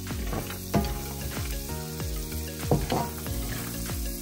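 Mixed nuts (almonds, cashews, walnuts, pistachios) frying in butter in a pan, sizzling steadily, with a spatula scraping and stirring them a few times.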